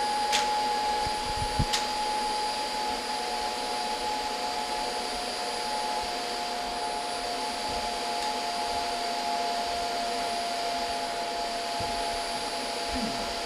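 Dyson upright ball vacuum cleaner running steadily with a high motor whine, which drops slightly in pitch a few seconds in. Two sharp clicks come near the start.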